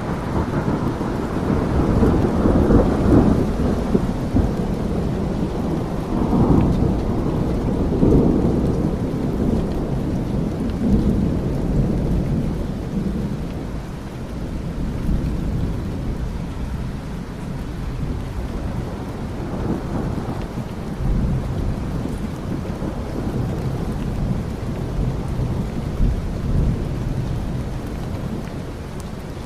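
Thunderstorm: steady heavy rain with low rolls of thunder that swell and fade, strongest in the first several seconds and again about two-thirds of the way through.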